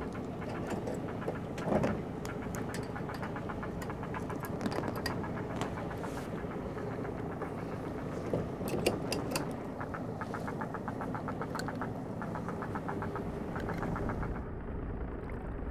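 A boat's engine running steadily at idle, with light clicks and rattles of fishing tackle being handled and a run of rapid ticks in the middle.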